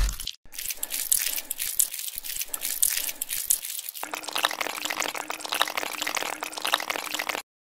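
Dense crackling and clicking foley for a clay eel crawling over mud. A faint steady hum joins about four seconds in, and the sound cuts off suddenly near the end.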